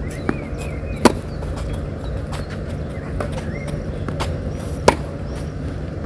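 Tennis ball struck by rackets in a rally on a clay court: two sharp, loud hits about a second in and near the end, with fainter hits and ball bounces between. Birds chirp faintly over a steady low outdoor hum.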